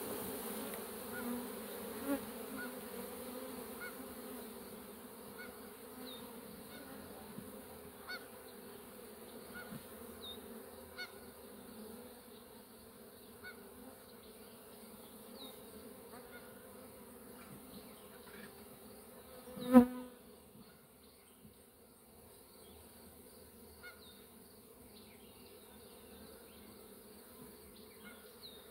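Honeybees in flight around an open hive, a steady hum that slowly grows fainter. About two-thirds of the way in, one bee buzzes loudly right past the microphone for a moment.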